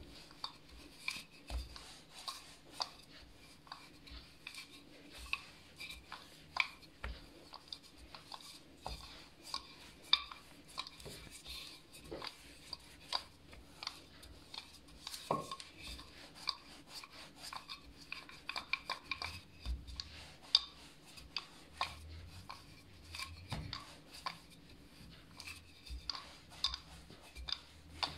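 Wooden rolling pin rolling out a slab of pastry dough on a stone countertop: irregular light knocks and clicks, one or two a second.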